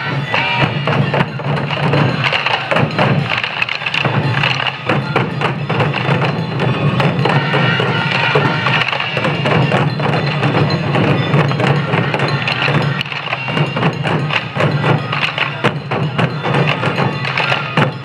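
Many Sansa Odori taiko drums, slung at the waist, beaten together in rhythm by a parading troupe of drummer-dancers, with festival music. The hits are dense and continuous.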